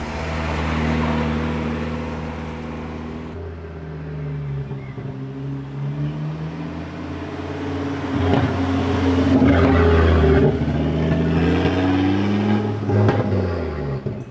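Turbocharged five-cylinder engines of Mk2 Ford Focus hot hatches pulling away. First a Focus RS drives off. Then a Focus ST accelerates past with a rising engine note, loudest just past the middle, and its pitch drops sharply near the end as it moves away.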